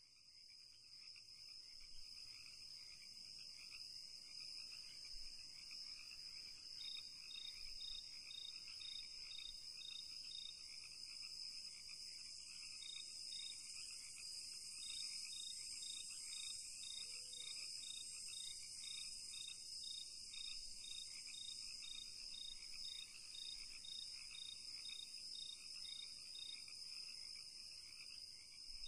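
Faint insect chorus: a steady high trilling with a separate regular chirp about twice a second, swelling up over the first few seconds.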